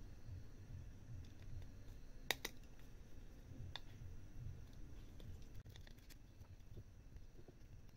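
Faint handling sounds of a small circuit board and its components being turned over in the fingers: a sharp double click a little over two seconds in, another click about a second later, and lighter ticks near six seconds, over a low steady room rumble.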